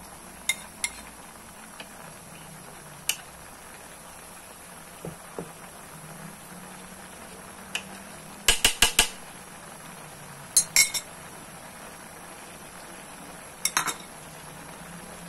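Sharp metallic clinks and taps against a large aluminium wok, mostly single knocks with quick runs of three or four, over a steady background hiss.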